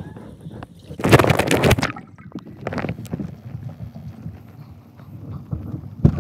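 Water noise heard through a phone's microphone while the phone is under the water of a swimming pool: a muffled low rumble, with a loud rushing burst about a second in and two shorter ones soon after.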